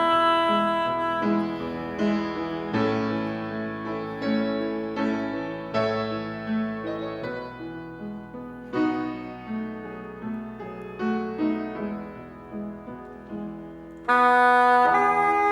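Saxophone with piano accompaniment playing a hymn tune. A held saxophone note at the start gives way to a piano passage of struck notes, and the saxophone comes back in loudly about fourteen seconds in.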